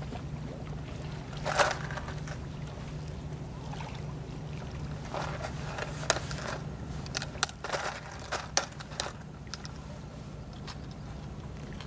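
Short clicks and rustles of fishing tackle and a rain jacket being handled, one about a second and a half in and a cluster in the middle, over a steady low hum.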